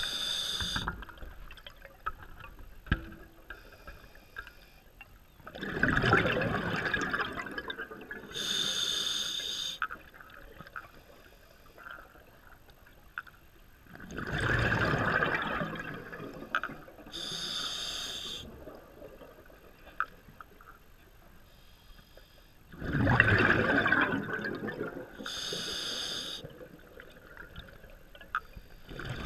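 A scuba diver breathing slowly through an open-circuit regulator underwater. There are three full breaths about nine seconds apart: each outward breath is a loud burst of exhaust bubbles, followed a couple of seconds later by the hiss of the regulator as the diver breathes in.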